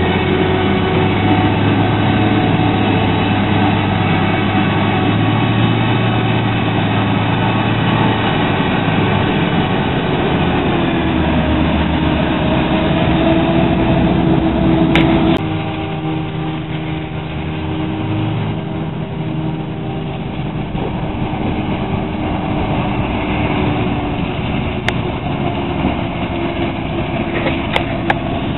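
Heavy diesel engines of a maize forage harvester and its attendant tractor working in the field, a steady multi-toned drone. The engine note drops about eleven seconds in, then the sound changes abruptly and runs quieter for the rest, with a few clicks near the end.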